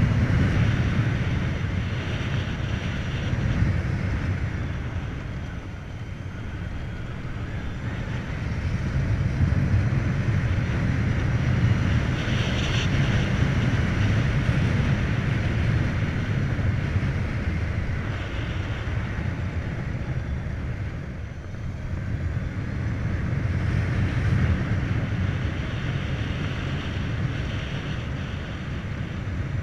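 Wind rushing over the microphone and road noise from riding a Volta BCN Sport electric motorcycle. It swells and eases with speed and drops off twice along the way.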